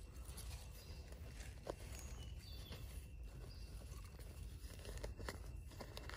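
Bare hands digging and scraping through dry, sandy soil at the mouth of a burrow, with soft crumbling and scraping noises and scattered small clicks.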